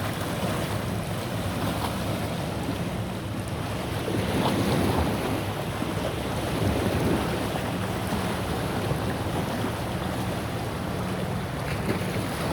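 Sea waves washing against rocks, with wind buffeting the microphone.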